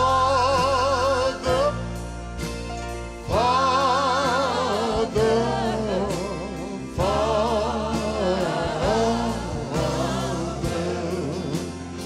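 Live gospel music: a man singing three long phrases with wide vibrato, over piano and band accompaniment with steady bass notes.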